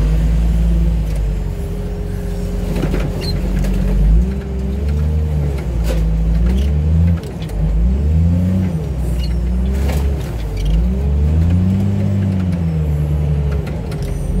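A heavy loader's engine repeatedly revving up and dropping back as it works its hydraulics, with a few sharp metal clanks.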